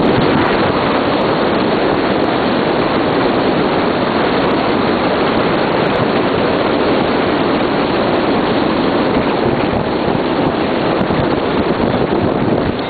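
Loud, steady rush of wind and road noise from a moving car, buffeting the microphone.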